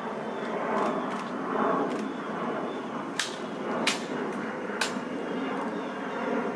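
Three sharp clicks during a ceremonial rifle inspection, about three seconds in and then a little under a second apart, as the rifle is handled with white gloves. They sit over steady outdoor background noise.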